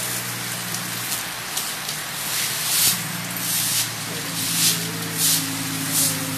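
Heavy rain falling in a steady hiss, with a low steady hum underneath. From about halfway through, louder swishes come roughly once a second.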